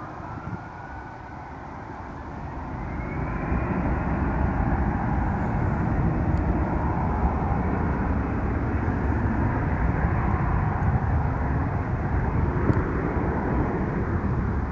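Jet airliner engines: the noise swells over about two seconds with a rising whine, then holds as a steady loud rumble.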